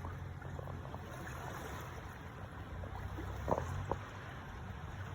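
Boat running on the water: a steady low engine hum under a wash of water noise, with two small knocks about three and a half seconds in.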